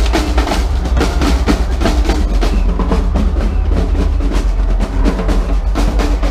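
Loud electronic dance music with heavy bass under rapid, rolling drum hits.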